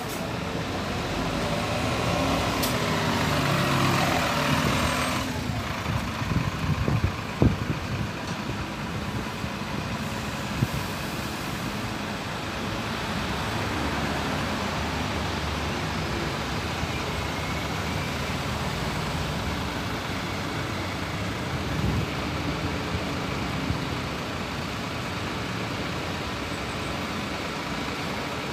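Mercedes Citaro city buses and street traffic driving past, engines running with tyre noise. A hissing rush stops abruptly about five seconds in, followed by a few sharp knocks.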